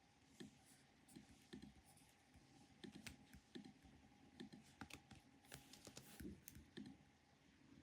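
Faint typing on a computer keyboard: irregular soft key clicks, about two or three a second, over a faint steady hum.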